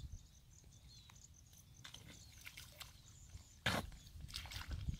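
Feet stepping through soft, wet mud: scattered small squelches and clicks, with one louder squelch a little past halfway.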